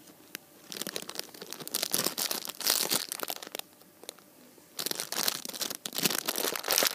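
Clear plastic bag around a squishy toy crinkling as it is handled, in two spells of dense crackling: one from about a second in, then a short lull, then another near the end.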